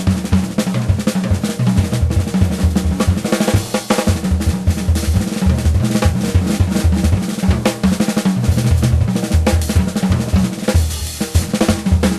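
Background music with a prominent, driving drum beat: kick drum and snare.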